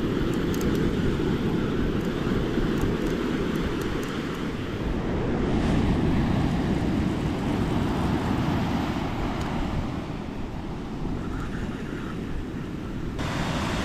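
Wind noise on the microphone over the steady wash of ocean surf.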